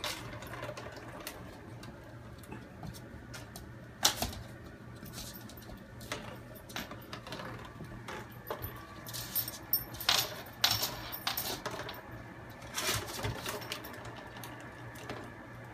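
Empty plastic water bottle crinkling and clattering on a laminate floor as a puppy bites and pushes it, giving irregular sharp clicks and crackles that are busiest about nine to eleven seconds in and again around thirteen seconds.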